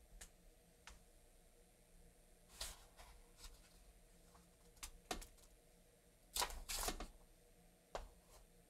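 Quiet paper rustles and handling sounds as the pages of a small paper pad are flipped: a scatter of brief rustles, the loudest pair about six and a half seconds in.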